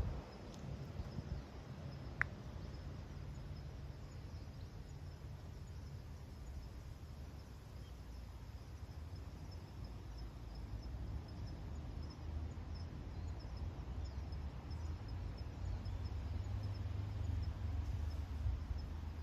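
Wind rumbling low on the microphone, with faint, rapid high-pitched insect chirping running through it. A single sharp click about two seconds in.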